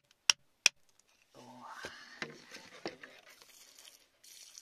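Three sharp taps of a metal tool against rock in the first second. Then a drawn-out vocal exclamation rising in pitch, and a wet hissing splash as water washes over the stone.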